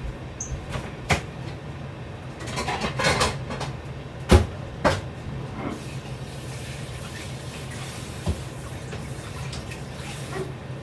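Kitchen cupboard and cookware being handled: a few light clicks, a rattling clatter about three seconds in, then two sharp knocks a little past four seconds and a lighter one near eight seconds. A steady low hum runs underneath.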